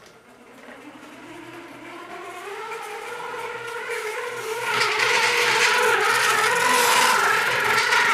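Model train approaching and speeding past on the layout: its electric motor whines and rises in pitch as it comes closer, growing steadily louder. About five seconds in, loud wheel-and-track noise joins as the train runs close by.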